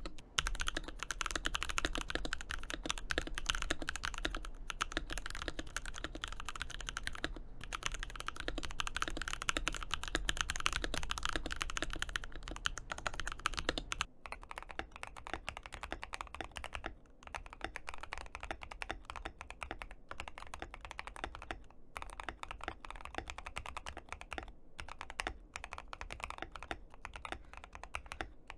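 Continuous fast typing on an ASUS ROG Azoth mechanical keyboard, a dense stream of key clicks. About halfway through the sound changes to a quieter take without the low hum underneath, as if switching to another version of the board.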